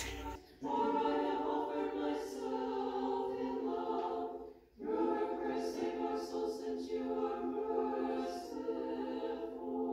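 Nuns chanting an Orthodox church service in several-part harmony, women's voices holding long notes. There are two long sung phrases with a brief pause between them about halfway through.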